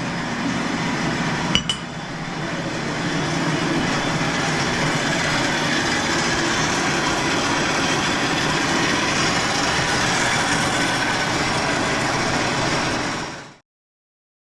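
Steel pieces being arc-welded onto a box: a steady welding hiss, with one sharp click about a second and a half in, cutting off suddenly near the end.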